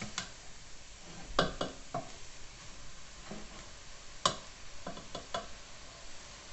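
Wooden spoon stirring a shredded-chicken filling in a stainless steel pot, knocking against the pot about nine times, loudest once early and once past the middle, over a faint steady sizzle from the sautéing filling.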